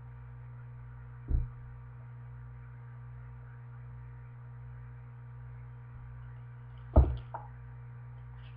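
A steady low electrical hum, broken by dull thumps from a hardcover picture book being handled close to the microphone: one about a second in, and a louder one about seven seconds in, followed by a softer knock.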